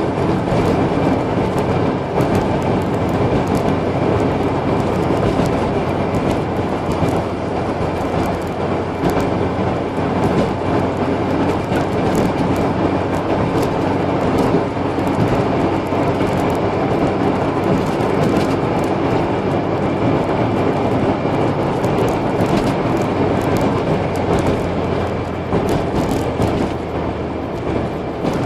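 Car driving at a steady cruise in fifth gear, heard from inside the cabin: a steady mix of engine hum and tyre and road noise with light scattered ticks.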